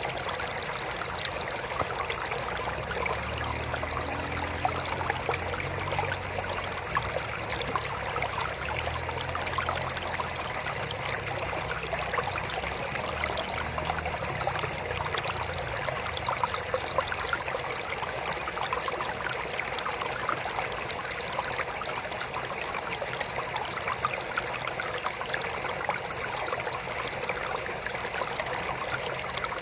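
Water trickling steadily into a small aquarium, a continuous splashing patter with many small drips. A low hum runs underneath for several seconds in the first half.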